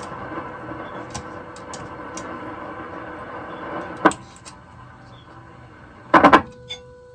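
Steady test tone from the speaker of a 1936 Zenith 6S27 tube radio, fed by a signal generator during IF alignment, heard under static hiss. About four seconds in a sharp click comes and the hiss drops. Near the end a short clatter of loud clicks comes, after which the tone sounds alone and clean.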